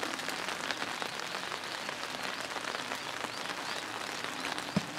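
Steady patter of light rain, many small drops ticking close by, with one dull thump near the end.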